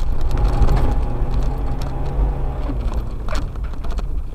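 An off-road vehicle driving over a rocky dirt track, heard from inside the cabin: a steady low engine rumble with scattered knocks and rattles, one louder knock about three seconds in.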